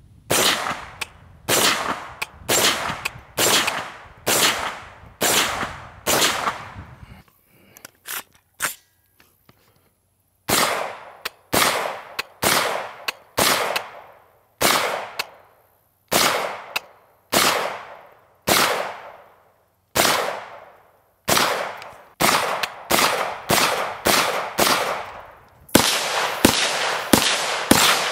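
CMMG Mk-W Anvil, an AR-type rifle in .458 SOCOM, fired semi-automatically: a long string of loud shots at a steady pace of a little over one a second, each with a short echo. There is a pause of a few seconds partway through, and the shots come faster near the end.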